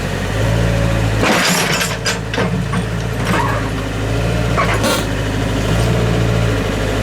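Excavator's diesel engine running steadily, with several sharp knocks over it in the first five seconds.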